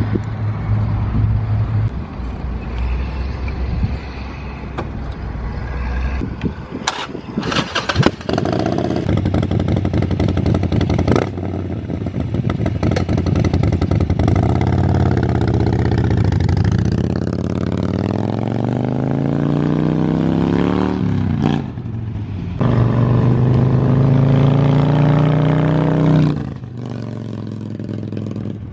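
Harley-Davidson Sportster Forty-Eight's 1200 cc V-twin running loud through Vance & Hines Mini Grenades exhaust while being ridden, its pitch rising as it accelerates through the gears about two-thirds of the way in. The sound changes abruptly several times, as between separate riding shots.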